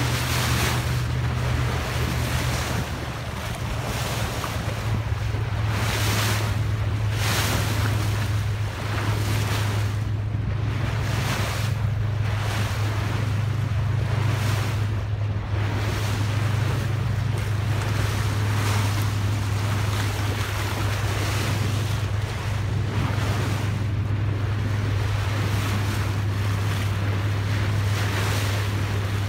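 Bow wave rushing and splashing along a moving boat's hull, with wind buffeting the microphone, over a steady low drone from the boat's engine. The splash and wind noise swells about once every second or two.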